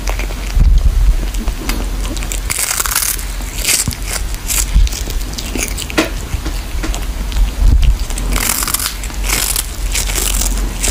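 Cat chewing and crunching on a small fish held in its paws, loud crunches coming in clusters with pauses between.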